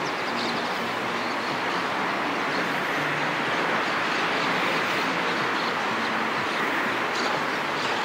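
River water rushing steadily through a concrete-walled channel, an even rushing noise with a faint low hum of distant traffic beneath it.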